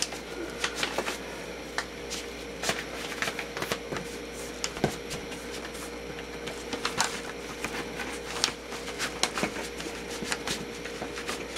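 Cardboard record sleeves and a stiff presentation box being handled: scattered rustles, scrapes and light taps as a tight-fitting sleeve is pushed and worked into the box.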